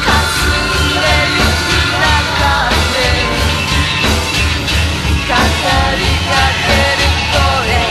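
Rock band playing at a steady beat, with drums, bass, guitars and keyboards, and a voice singing wavering lines over them.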